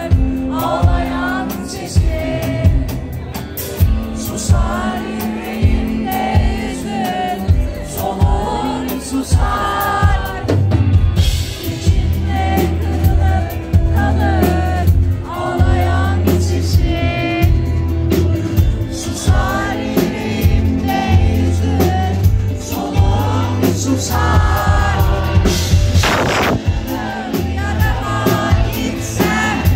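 Rock band playing live, with vocals, drum kit and bass, heard from among the audience, who are singing along close to the recording phone.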